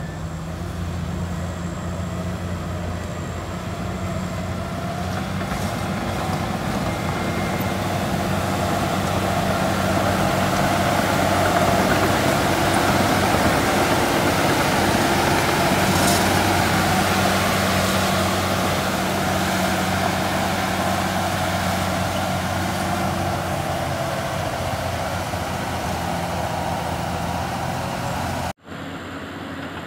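Shantui SD13 crawler bulldozer's diesel engine running steadily under load as it pushes soil. The engine grows louder over the first ten seconds or so, then eases off, and the sound drops out for a moment near the end.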